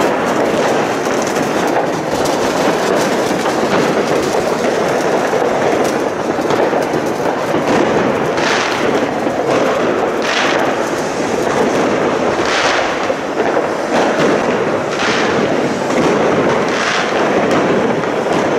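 Ground firework fountains spraying sparks, giving a loud, continuous hissing crackle. From about eight seconds in, louder rushes of crackle come about every two seconds.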